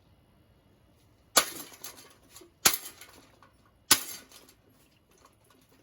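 Three sharp blows about a second and a quarter apart, each followed by a brief rattling clatter: a Harbor Breeze Crosswind ceiling fan being struck to break it apart.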